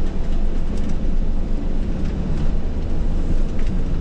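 Mercedes Sprinter van driving on a rough road, with a steady low rumble and a few light ticks and knocks scattered through it.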